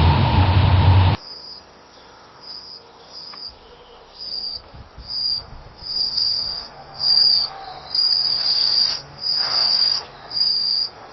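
Night ambience of crickets chirping in short, high, repeated pulses that grow louder and closer together toward the end. At the start, a loud steady rumbling noise cuts off suddenly about a second in.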